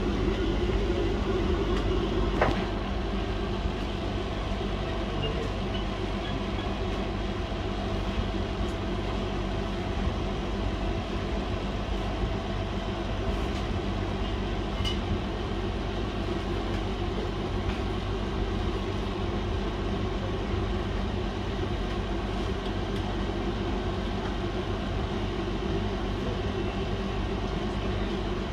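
Steady machine hum from electronics-repair bench equipment, with a single sharp click about two and a half seconds in, after which the hum drops a little in level.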